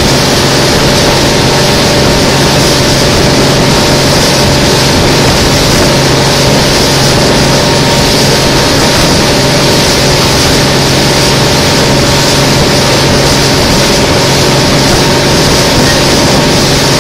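Boat engine running steadily at cruising speed, a constant low hum with a steady rush of water beneath it.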